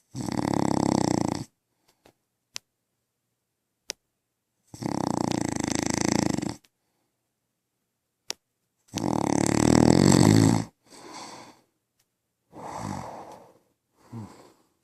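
A man snoring in his sleep: three loud, long snores about four seconds apart, then three shorter, softer ones near the end.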